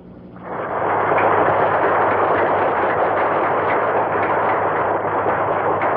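Large audience applauding, swelling in about half a second in and then holding steady and loud.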